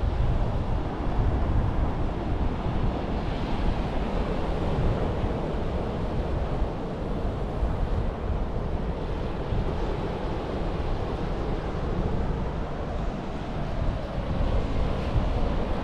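Ocean surf washing onto the beach, with wind buffeting the microphone in a heavy low rumble.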